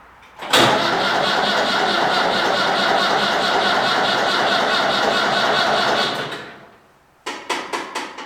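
John Deere 2510 tractor's starter cranking the cold engine steadily for about six seconds without it catching, followed by a few short clatters near the end. The engine is too cold to fire because its block heater was not plugged in.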